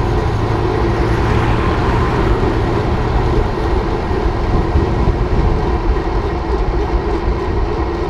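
Steady, loud rush of wind over the microphone mixed with tyre noise from a road bike riding fast on asphalt. A low steady hum underneath stops about three and a half seconds in.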